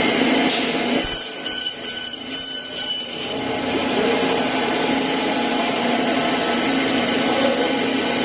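Meat-cutting bandsaw running steadily, with a pulsing higher whine for about two seconds near the start.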